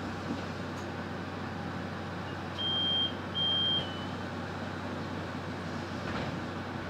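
Steady rumble and low hum inside a Solaris Urbino 18 articulated bus, with two short, high electronic beeps about three seconds in, the loudest sounds.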